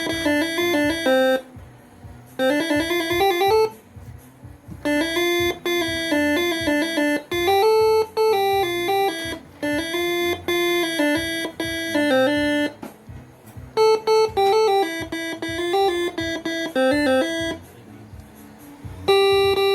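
Basuri telolet multi-trumpet air horn, driven by a Moreno MS2 melody module, playing a tune: a run of pitched horn notes stepping up and down, broken by four short pauses between phrases.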